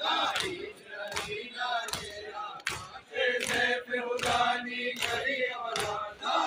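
Crowd of men chanting a Shia mourning lament in unison while beating their chests (matam) in rhythm, with a sharp slap about every two-thirds of a second.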